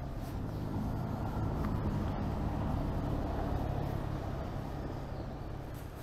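A motor vehicle passing on the road, its low rumble swelling to a peak about two to three seconds in and then fading away.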